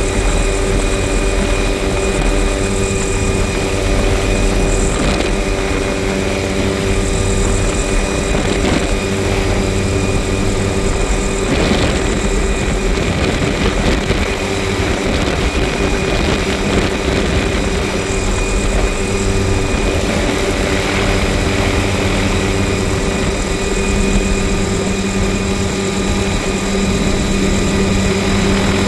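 Helicopter engine and rotor running steadily and loud, heard from inside the cabin with the doors off, with a low rumble.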